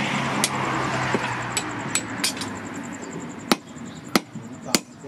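Hammer striking a red-hot axe head held with tongs on a steel post anvil: a few scattered blows, then three evenly spaced sharp strikes in the last second and a half. A rushing noise with a low hum fills the first half and fades away.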